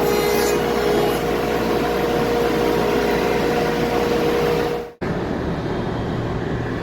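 Steady mechanical running noise with a constant hum, cut off abruptly about five seconds in and followed by a different steady rumble.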